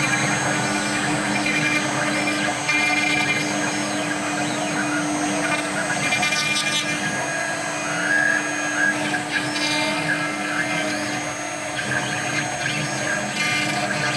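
CNC router spindle running steadily, its fine bit cutting across the wood on the Y-axis finishing pass that clears the earlier machining marks.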